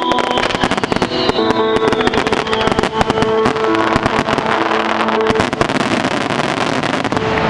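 A starmine barrage of fireworks: rapid, densely overlapping bursts and crackles going off without a break, with the display's music playing beneath.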